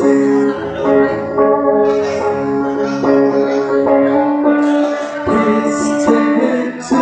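Live acoustic band performing a song: vocals held over strummed acoustic guitar accompaniment.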